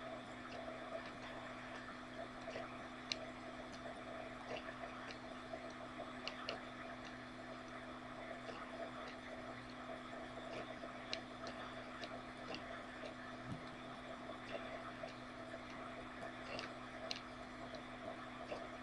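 Faint room tone: a steady low hum with scattered small clicks at irregular intervals.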